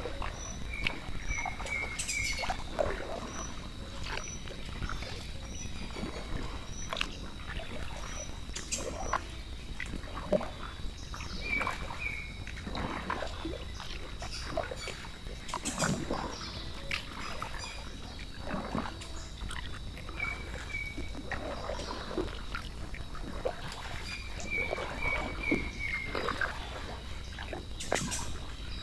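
Tropical forest ambience: a steady high insect drone, runs of short repeated animal chirps, and irregular short knocks and grunting calls.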